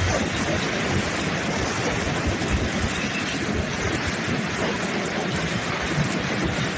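A car's road noise on a wet road: a steady rushing hiss of tyres and air, with a low rumble underneath.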